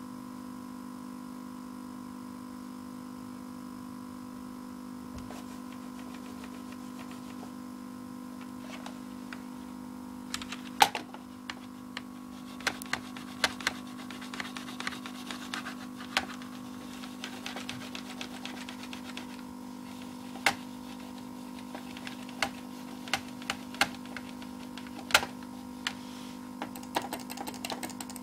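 A frozen PC's sound output stuck on a steady buzzing drone of several fixed tones, the weird noise that comes with the system hanging. After about ten seconds, sharp irregular clicks and taps come over it.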